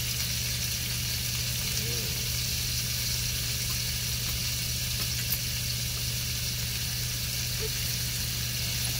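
Pieces of sirloin steak frying in a pan over a portable gas stove, sizzling with a steady hiss, with a steady low hum underneath.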